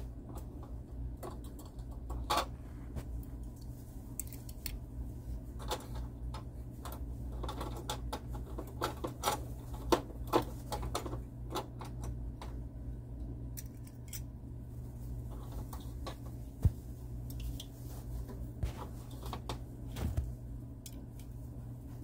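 Low steady hum of a motorized rotating display stand turning, with irregular light clicks and taps scattered over it, a few sharper ones around the middle.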